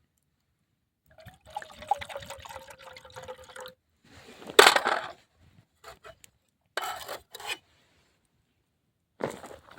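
Liquid poured into a container for about two and a half seconds, with a steady tone through the pour. A louder short rush of noise follows a second later, then a few brief, separate noises.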